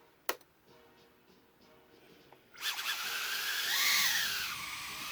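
A single click, then about two and a half seconds in the tiny brushless motors of a UR65 micro quad spin up with a high whine that rises and falls back with the throttle. This is a quad whose number three motor won't start up on its own, a fault the owner puts down to the flight controller board.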